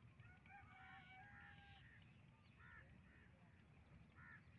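Crows cawing faintly and repeatedly. Near the start a faint, distant horn sounds several notes at once for about a second and a half: the horn of the approaching HBU-20 diesel locomotive.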